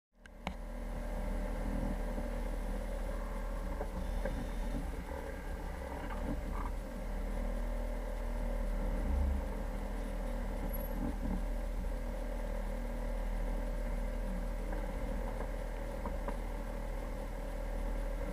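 Motor engine running steadily, a low hum with several steady tones above it and a few light knocks, cutting in suddenly at the start.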